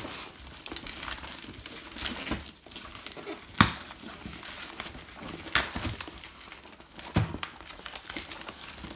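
White plastic mailing bag being crinkled and torn open by hand: irregular crackling and rustling, with a few sharp snaps. The loudest snap comes about three and a half seconds in.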